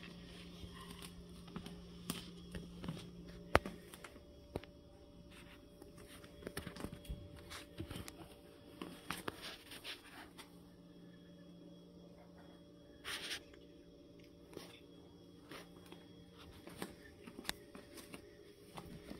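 Quiet room with scattered small clicks and rustles from hands petting cats and handling a phone, over a low steady hum that drops out for several seconds after a sharp click.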